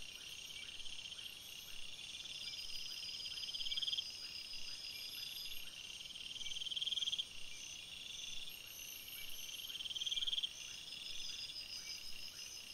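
Faint night chorus of crickets and other insects: steady high-pitched trilling, with a louder trill swelling up three times, about every three seconds, and cutting off sharply each time.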